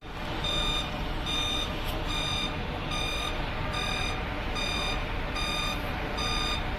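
Mercedes-Benz Travego coach's reversing alarm beeping eight times, about one short beep a second, over the low steady running of the coach as it pulls out of its platform bay.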